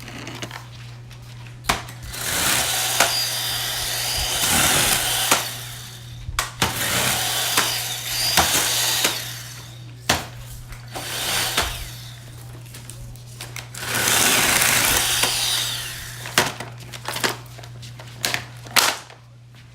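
A Worx JawSaw 20-volt cordless mini chainsaw cutting through a branch in about four separate cuts, each lasting a few seconds. Sharp snaps and clicks come between the cuts and near the end.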